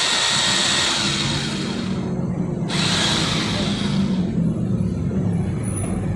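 Corded rotary hammer drill running free in the hand with a high motor whine, stopping about two seconds in, giving one more short run, then switched off. A steady low rumble of road traffic lies underneath.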